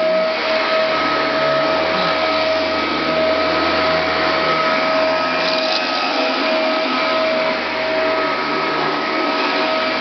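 Dyson ball upright vacuum cleaner running steadily as it is pushed and steered over carpet, its motor giving a constant high whine over an even rush of air.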